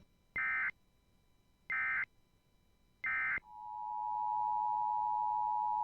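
Emergency Alert System SAME header: three short bursts of data tones about a second and a half apart, the encoded start of a new alert. About three and a half seconds in, the steady two-tone EAS attention signal begins and holds.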